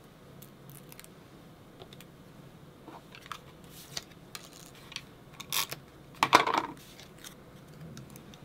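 Paper craft pieces being handled on a cutting mat: light taps and paper rustles, with a louder rustle lasting about half a second a little past the middle.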